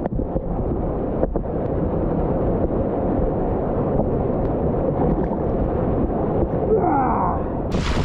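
Whitewater rapids churning around a river raft, heard as a dense, muffled rumble with the camera at the water's surface. Just before the end the sound opens into a bright hiss of wind and spray on the microphone.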